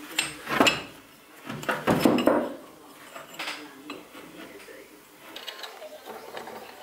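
Metal parts of a worm gear reducer and its steel torque arm clinking and scraping on a workbench as they are handled and fitted together. There are a few louder clanks in the first two and a half seconds, then lighter ticks.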